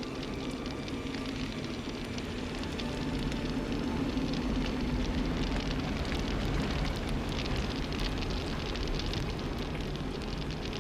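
Car wrecked by a bomb, burning: fire crackling over a steady low rumble, the crackle growing denser and a little louder a few seconds in.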